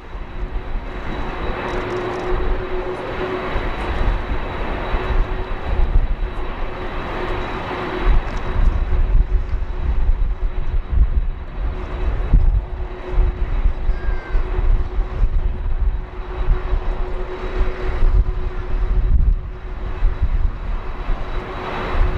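Jet airliner engines running with a steady whine over a continuous roar, heard with strong gusts of wind buffeting the microphone.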